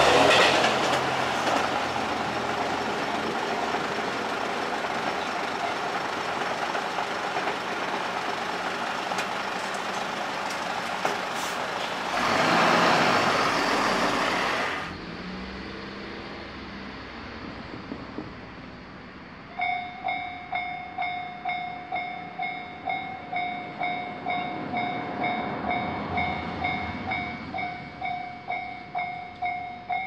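A train passes through a level crossing and draws away, its running noise slowly fading. About halfway through it gives way to a Japanese level crossing's electronic alarm bell starting up: an evenly repeated ringing ding at about one and a half strikes a second, the warning that a train is approaching and the crossing is closing.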